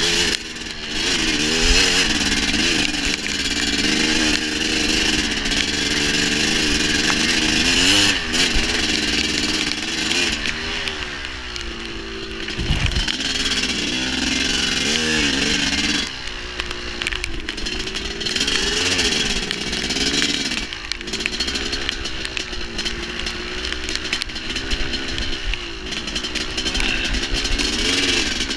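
Dirt bike engine under way, its pitch rising and falling again and again as the throttle is opened and closed.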